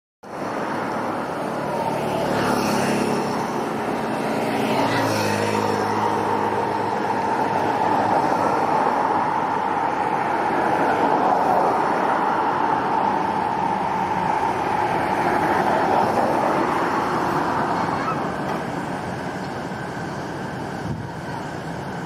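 Steady road traffic noise, with a passing vehicle's engine hum plain in the first few seconds. The noise swells through the middle and eases a little near the end.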